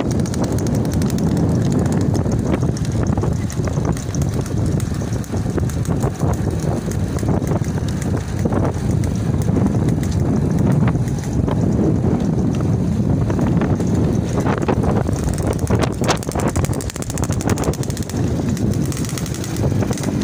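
Small motorcycle engine running, with wind buffeting the microphone.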